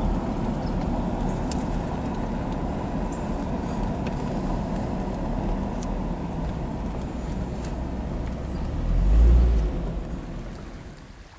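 1996 Jaguar XJS convertible driving slowly with the top down: steady engine, tyre and wind noise. A deep low rumble swells about nine seconds in, and the sound then fades away near the end.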